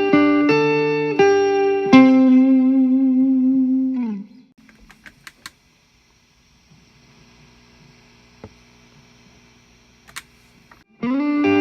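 Electric guitar through the Alien Rabbit Magic Drive tube overdrive pedal into a Fender amp, set for low gain: a few sustained, lightly distorted notes, the last held with vibrato and sliding down at about four seconds. A pause of several seconds follows, with faint amp hum and a few clicks, and then playing resumes near the end.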